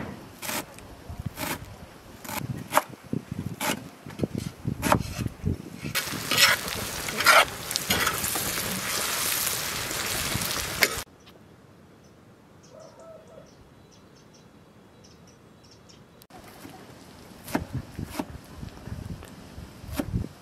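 A large knife chopping fresh dill on a wooden cutting board, knocking about twice a second. Partway through, sliced onions frying in hot oil take over with a loud steady sizzle as a slotted skimmer stirs them, cutting off suddenly to a quiet stretch, before the knife chopping returns near the end.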